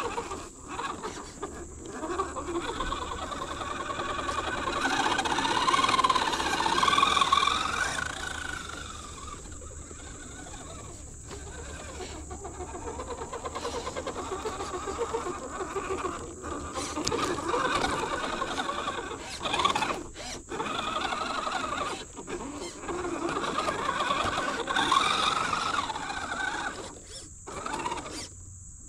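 Brushed 13-turn Holmes Hobbies Crawlmaster 540 motor and drivetrain of a 1/10 RC crawler whining, its pitch rising and falling with the throttle at crawling speed. The sound cuts out briefly several times.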